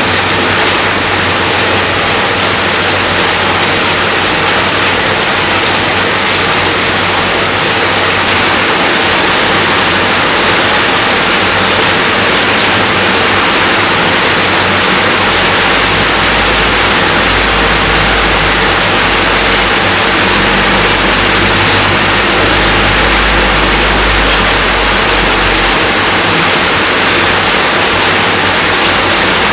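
Steady heavy rainfall, a dense even hiss. A low rumble sits underneath for about ten seconds past the middle.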